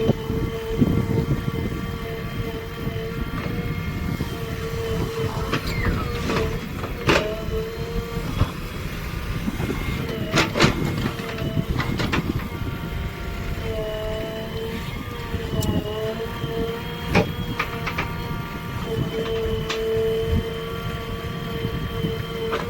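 Diesel engine of a JCB 3DX backhoe loader running at work loading mud, a steady rumble under a whine that dips in pitch now and then. Several sharp metallic clanks come through it.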